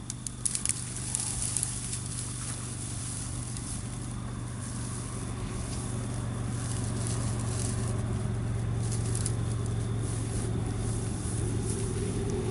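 Steady low rumble of wind on the microphone with a constant low hum; dry tall grass rustles and crackles sharply in the first couple of seconds as a person pushes through it.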